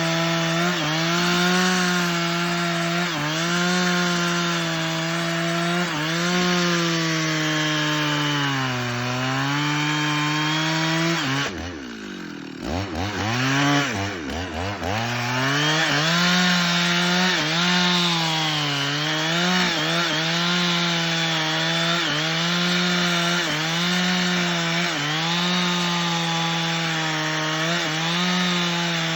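Stihl two-stroke chainsaw running at high revs and cutting wood, its pitch sagging and recovering again and again as the chain loads up in the cut. About twelve seconds in, the engine drops off toward idle and then revs back up over a couple of seconds before cutting on.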